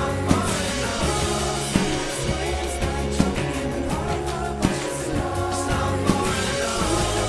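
Indie pop song with singing over a steady drum beat, a loud drum hit landing about every one and a half seconds.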